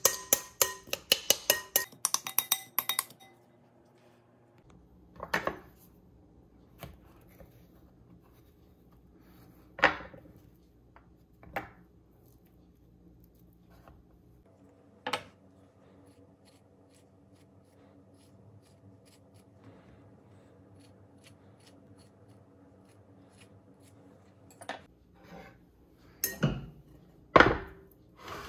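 Rapid clinking of stirring in a glass mixing bowl for about the first three seconds. Then a few scattered knocks and taps of a knife and avocado on a wooden cutting board, and two louder knocks near the end as avocado is spooned against the glass bowl.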